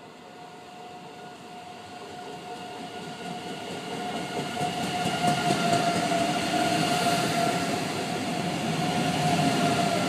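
ICE 3 high-speed electric train passing through a station at slow speed, held to about 40 km/h by what the uploader takes to be a caution signal. The rumble of the train rolling on the rails grows louder over the first five seconds as it draws near, then holds as the carriages go by, with a steady whine over it.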